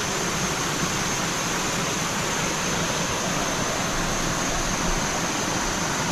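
Small waterfall splashing into a clear pool: a steady, even rush of falling water, with a thin steady high note above it.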